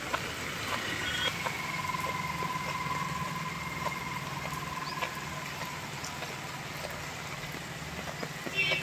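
Steady rain hiss with small scattered ticks, over the low steady hum of an idling vehicle engine. A faint, even, high tone is held for several seconds from about a second in.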